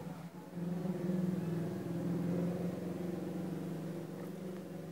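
Steady low mechanical hum, like a motor running, with one strong low tone and fainter higher tones above it.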